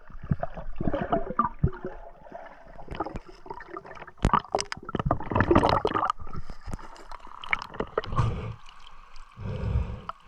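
River water gurgling and splashing around a diver moving through it, with irregular sharp knocks and clatters, the busiest stretch about halfway through.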